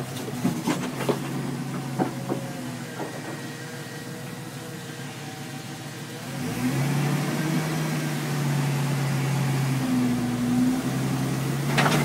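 Jeep Wrangler's 4.0-litre straight-six engine running at low revs as the Jeep crawls over boulders, with sharp knocks and crunches of tyres and rock in the first couple of seconds and again near the end. About six seconds in, the engine runs louder and a little higher as more throttle is given.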